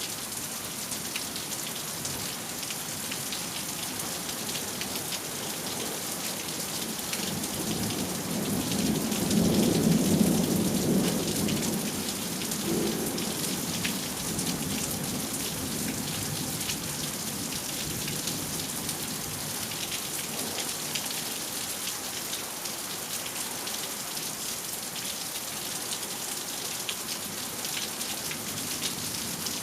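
Thunderstorm: steady rain on surfaces, with a rumble of thunder that builds about a quarter of the way in, peaks near the middle and rolls away a few seconds later.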